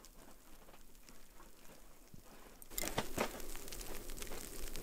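Faint, scattered light patter. About three seconds in it turns to louder crunching and crackling in snow.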